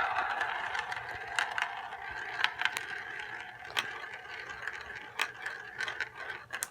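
Two marbles rolling down a marble run: a steady rolling rattle with scattered sharp clicks as they knock against the track. It is loudest at the start and slowly quietens.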